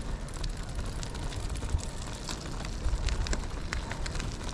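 Brompton folding bike rolling along a gravel trail: a steady crackle of many small clicks from the tyres on loose gravel, over a low wind rumble on the microphone.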